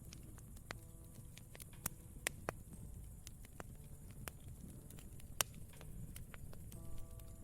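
Wood fire crackling: irregular sharp pops and snaps over a low, steady rumble of burning, with a few louder pops about two seconds in and again past five seconds. Soft, sustained piano notes sound briefly near the start and come back near the end.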